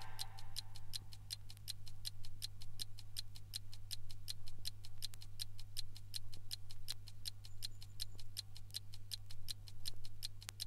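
Fast, evenly spaced ticking, about five ticks a second, over a low steady hum.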